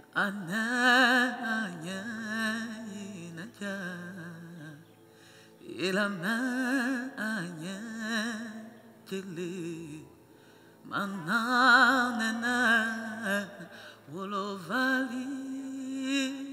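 One voice singing long, ornamented phrases with wide vibrato, three phrases, each opening with an upward slide into the note.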